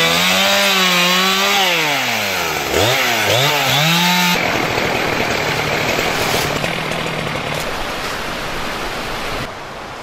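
Petrol chainsaw cutting bay laurel branches, its engine pitch sagging and rising again as the chain bites into the wood, with one deep drop and recovery in the middle. After about four seconds it cuts off abruptly, replaced by the steady rush of a fast-flowing stream.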